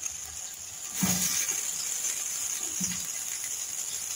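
Chicken pieces in yogurt sizzling in a large aluminium pot, a steady hiss that grows louder about a second in, with a spoon stirring the meat.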